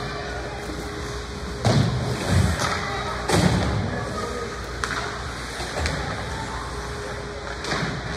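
Several dull thuds, three close together in the first half, and a couple of sharp knocks later, over a steady background of distant voices.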